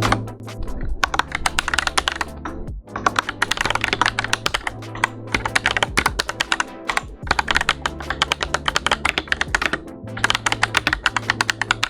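Fast typing on a Redragon K656 Pro mechanical keyboard: a rapid run of key clacks, with short pauses about three seconds in and again about seven seconds in. Electronic music with a steady bass line plays under it.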